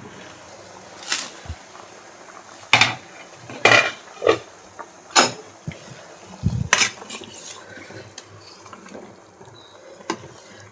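A metal spoon clinking against a cooking pan as liquid rasam is stirred: about seven sharp clinks at irregular intervals over a faint steady hiss.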